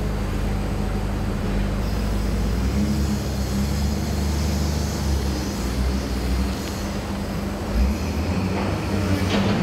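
Wheel loader's diesel engine running steadily under load as it lifts and tips its bucket over a feed hopper, the engine note shifting a couple of times. A short thump near the end.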